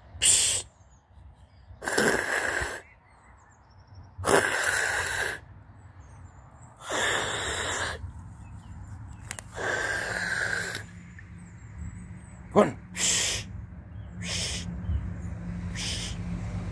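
A man hissing 'psst' and 'shh' over and over at mute swans to shoo them away: about eight breathy hisses, each half a second to a second long, with a sharp click a little past the middle.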